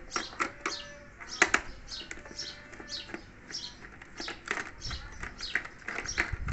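Birds chirping in the background: a steady run of short, falling chirps, about two a second. A sharp click stands out about one and a half seconds in, with a few fainter clicks.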